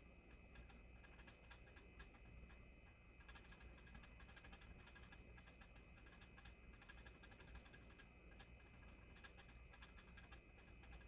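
Near silence: a faint steady hum with scattered faint clicks.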